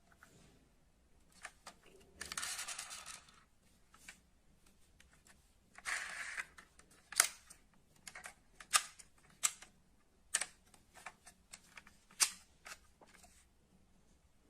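Die-cast metal model cars being handled on a hard surface: two short scraping or rolling stretches, then a series of sharp clicks and taps, about five of them loud.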